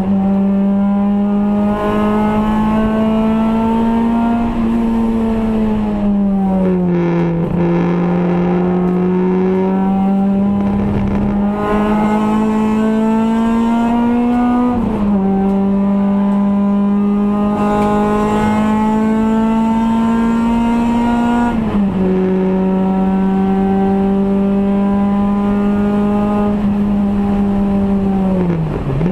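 Race saloon's engine heard from inside its stripped cabin, running hard at high revs. The note climbs slowly in each gear and drops sharply at two upshifts, about fifteen and twenty-two seconds in. It sags for a couple of seconds about six seconds in and falls away at the very end.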